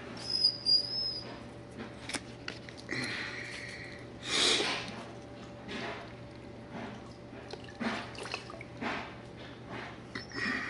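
Dog whining in high thin whines, with a louder yelp about four and a half seconds in.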